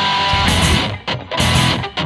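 Background music led by strummed electric guitar, in loud choppy blocks with short breaks.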